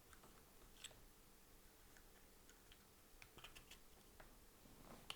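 Near silence with a few faint, small plastic clicks and taps: a Mercedes Vito key fob being handled as its two CR2025 coin-cell batteries are fitted back in and the case pushed together.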